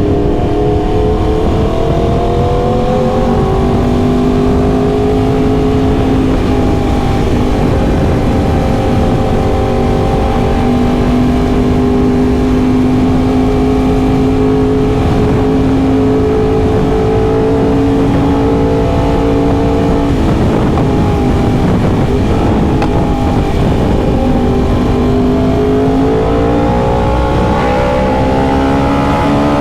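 Yamaha R1M's crossplane inline-four engine running under way at a fairly steady pitch, rising a little at first, dipping about three-quarters through, then climbing again near the end as it accelerates, over a constant low rush.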